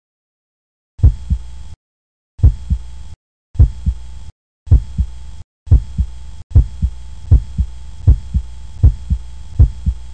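Heartbeat-like double thumps on the soundtrack, a strong beat followed by a weaker one, over a steady low hum. They come in about a second in as short chopped bursts with silent gaps, about one beat a second, then run unbroken and a little faster from about halfway.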